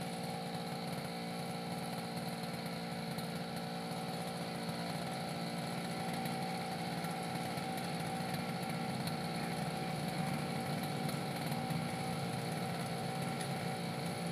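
Backpack brush cutter's small engine running steadily at an even pitch while it sits on the ground, not cutting.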